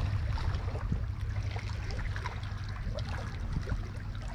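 Small waves lapping and trickling against shoreline rocks, with scattered little splashes, over a low steady wind rumble on the microphone.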